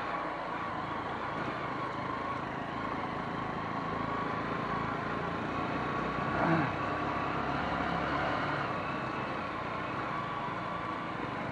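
A vehicle running steadily on the move: an even engine-and-road drone with a faint steady tone, and a brief slight swell about six and a half seconds in.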